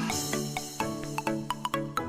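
Background music: a light, bouncy tune of held pitched notes with short bright plucked or chimed notes tapping out a quick rhythm.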